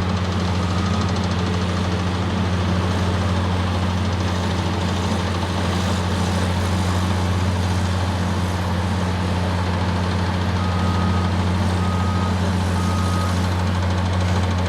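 Diesel engine of a Caterpillar 963C track loader running steadily. Three short reversing-alarm beeps sound in the last third.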